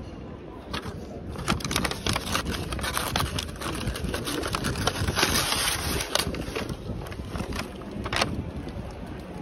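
Paper food wrapping crinkling and rustling in the hands: greaseproof paper and a paper bag opened around a pork souvlaki skewer, in irregular crackles over a steady low rumble.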